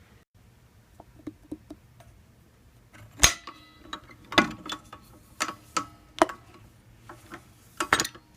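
Hard objects being handled: a few light clicks, then from about three seconds in a run of sharper knocks and clacks. The first knock is the loudest and leaves a short ringing.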